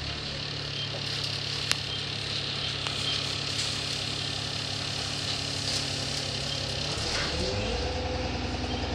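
A single-deck bus's engine and running noise, heard from inside the passenger saloon, holding a steady low drone. There is one sharp click a little under two seconds in. From about seven seconds in the engine note rises as the bus picks up speed.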